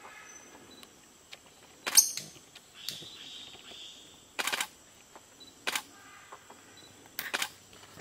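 Sharp, dry clicks: a loud single snap about two seconds in, then runs of three or four rapid clicks about halfway through and again near the end, with a single click between them.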